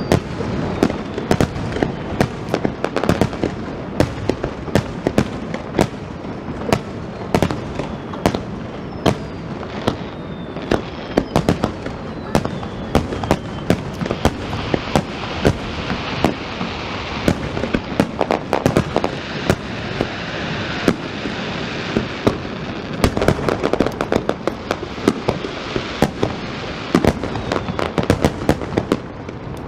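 Aerial fireworks display: a dense barrage of shell bursts and bangs, several a second, with a few falling whistles in the first half and a thicker crackling patch in the middle.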